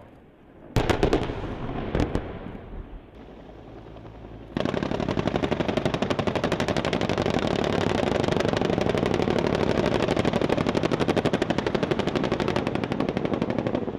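A few loud gunfire bangs about a second in. Then, from about four and a half seconds, an AH-1 Cobra attack helicopter makes a fast, even pounding of roughly ten beats a second that keeps up without a break.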